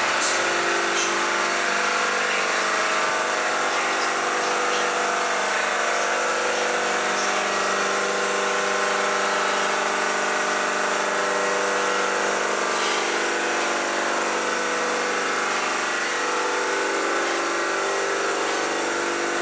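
A machine running steadily: an even hum with a constant high-pitched whine over it.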